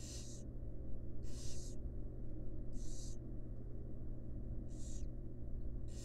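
Barn owl nestlings giving hissing begging calls for food: four short rasping hisses about a second and a half apart, over a steady low hum.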